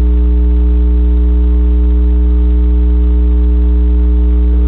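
Loud, steady electrical hum at mains frequency, a deep drone with a stack of evenly spaced overtones that does not change.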